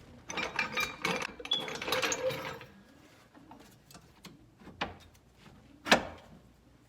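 Ratchet wrench clicking rapidly for about two seconds as a bolt is worked loose from the rear suspension. Scattered light clicks follow, then one sharp knock about six seconds in, the loudest sound here.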